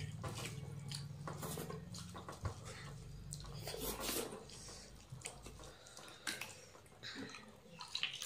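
Eating by hand: fingers mixing rice and curry on steel plates, with small clicks and scrapes against the plates and chewing. Near the end water is poured from a plastic bottle into a plastic cup. A low hum fades out about two seconds in.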